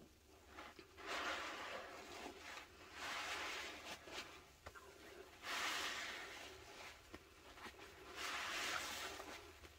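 A porous sponge soaked in sudsy pine cleaner is squeezed by hand in a bowl of thick foam: four wet, hissing squishes, each lasting about a second, roughly two seconds apart.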